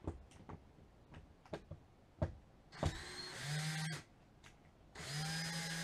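Cordless drill driving a screw into the boat deck to fasten a heading sensor mount: a few clicks and knocks of handling, then the drill motor spins up and runs about a second, stops, and starts again about a second later to run steadily.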